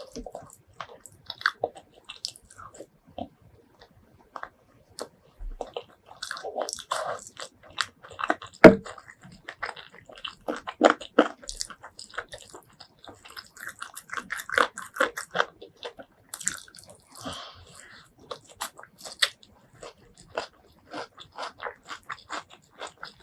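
Close-miked eating: biting and chewing with crunches, a dense run of short, irregular crackles and clicks. The loudest is a sharp crunch about nine seconds in.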